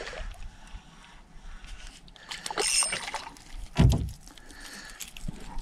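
Water sloshing and splashing at the side of a small aluminium boat as a hooked perch is reeled in close and lifted. There is one low thump a little under four seconds in.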